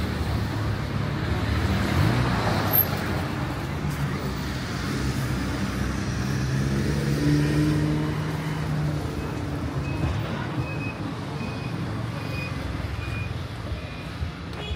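Street traffic: cars passing on the road beside the sidewalk, with engine drone swelling in the middle. In the second half comes a regular series of short high beeps, about two a second.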